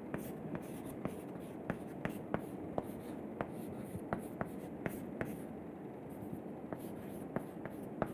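Chalk writing on a blackboard: a run of irregular sharp taps and short scratches, a few each second, over quiet room tone.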